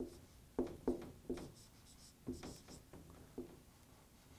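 Dry-erase marker writing capital letters on a whiteboard: about seven short strokes with pauses between them, three in the first second and a half and the rest in the second half.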